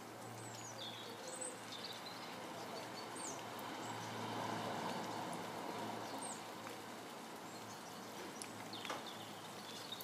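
Steady rain falling on garden foliage, with a handful of short, high, falling bird chirps scattered through it.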